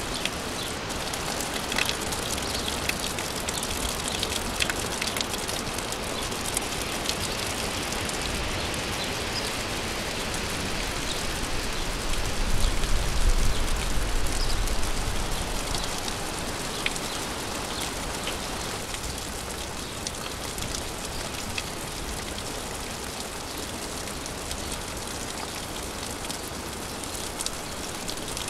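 Steady rain falling, with distinct drops heard as scattered sharp ticks over an even hiss. A low rumble swells briefly about halfway through.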